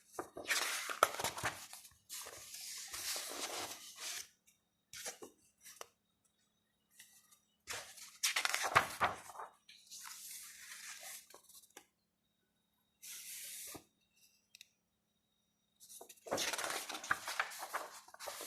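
Paper and card rustling as a K-pop album's photo pages and inserts are handled and turned, in a series of separate bursts with short quiet gaps.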